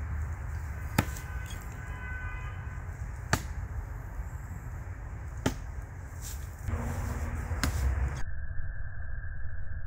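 Thrown knives striking a tree trunk: four sharp thunks, roughly two seconds apart, over a steady low outdoor rumble.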